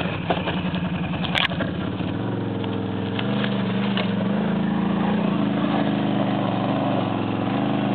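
ATV engine running at low, fairly steady revs as the quad crawls up a steep rocky rut, with one sharp knock about a second and a half in.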